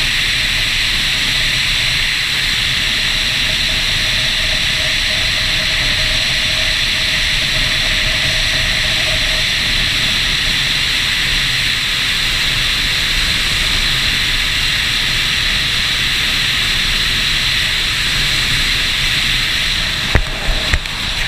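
Steady wind rush over the microphone of a Suzuki DR-Z dual-sport motorcycle riding at road speed on pavement, with the running gear low underneath. A few short knocks come near the end.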